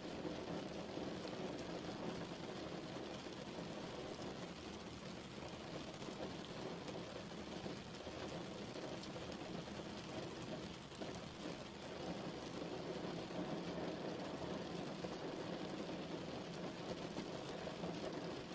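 Steady rain falling, an even wash of noise weighted toward the low and middle range, with faint scattered drop ticks.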